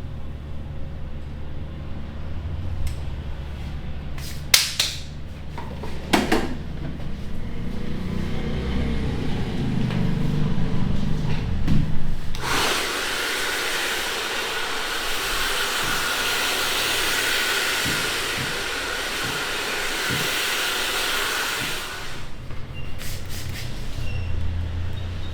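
A hair dryer blowing in a steady hiss for about ten seconds, starting about halfway through. Before it there is a low rumble with two sharp clicks.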